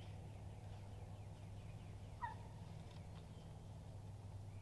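Faint, distant gobbling of a wild turkey gobbler over a low steady hum, with one sharper call about two seconds in.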